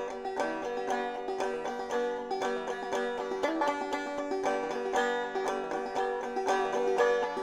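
Background music with quickly picked string notes, in a bluegrass or country style.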